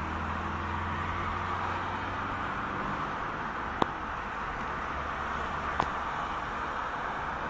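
Steady road noise inside a moving car's cabin: a low engine and tyre hum under an even hiss of tyres and wind. Two short sharp clicks sound, one at about four seconds in and one at about six.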